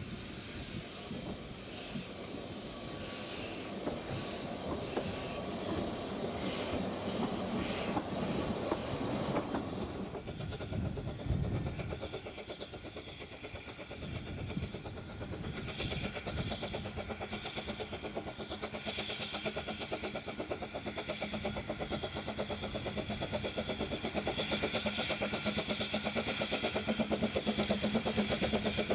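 Narrow-gauge steam train, first heard riding in its carriage with the wheels clacking over the rail joints. After that a small steam tank locomotive hauling carriages approaches and its running sound grows louder toward the end.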